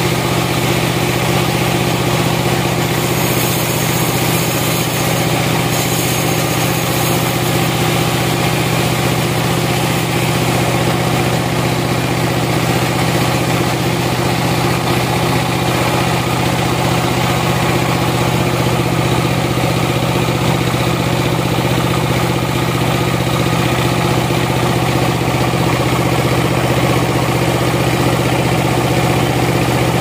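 Band sawmill running steadily as its blade saws along a log: a constant low machine drone that holds unchanged throughout.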